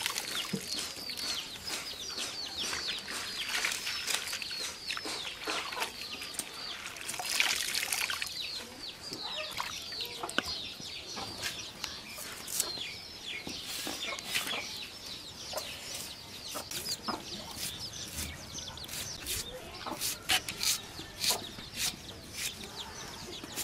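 Chickens clucking and chirping close by: a quick run of short falling chirps for the first several seconds, then sparser calls. Water splashes as shallots are washed by hand, and sharp clicks come from a knife peeling an onion near the end.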